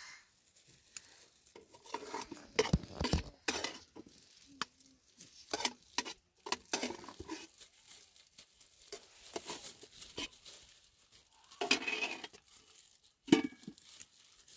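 Irregular clinks and knocks of hard objects being handled, coming in scattered clusters.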